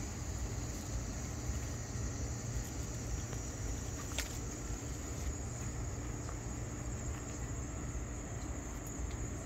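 Steady, unbroken high-pitched chorus of insects over a constant low rumble, with a single faint click about four seconds in.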